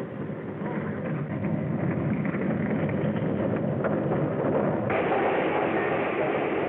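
A car's engine and road noise, rising as the car speeds along a dirt road and passes close, on a narrow-band old film soundtrack. About five seconds in it cuts abruptly to the louder, brighter rumble of a passing train.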